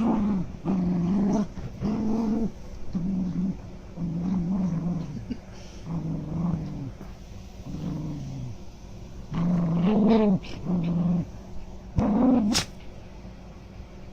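Small dog growling in play: a string of about ten short, low grumbles, with a single sharp, high yelp near the end.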